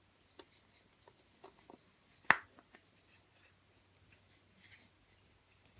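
Hands handling a carved wooden panel and its loose wooden eye insert: light rubbing and small wooden clicks, with one sharp wooden knock about two seconds in.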